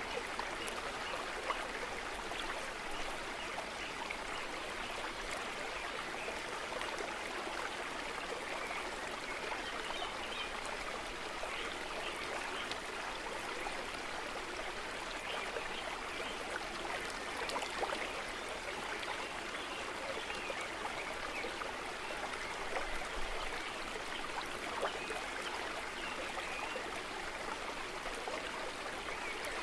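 Steady rushing noise like running water, with faint small crackles scattered through it.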